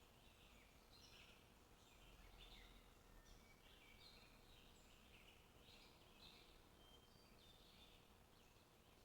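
Faint, busy chirping of many small birds, short calls overlapping one another without a break.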